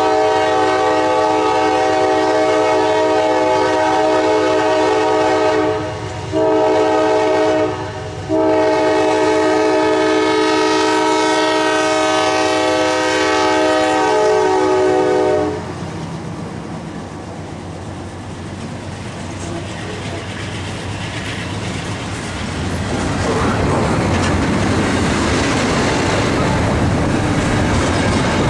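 Norfolk Southern freight locomotive's air horn blowing for a grade crossing: a long blast, a shorter one, then a long one held until about halfway through. Then the locomotives and the double-stack intermodal cars roll past, their wheels clacking on the rails and growing louder over the last few seconds.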